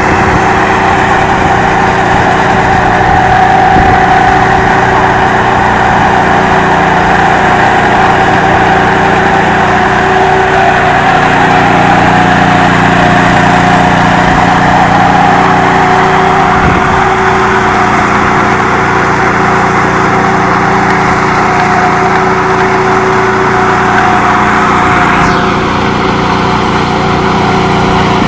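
Engine of a ride-on power trowel running steadily as its twin rotors finish a wet concrete slab, a loud, even drone.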